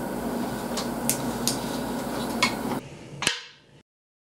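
Chopsticks clicking against tableware: about five light, sharp taps over a steady room hum. About three seconds in, the sound fades and cuts out to dead silence.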